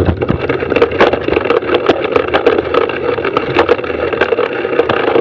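Mountain bike descending a rough dirt singletrack: tyres rolling over dirt and rocks and the bike rattling, with many sharp knocks and clatters from bumps throughout.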